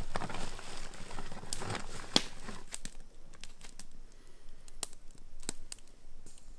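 Plastic bag crinkling and rustling as a hand rummages inside a plastic food barrel, busiest for the first three seconds. It is followed by a few scattered separate clicks.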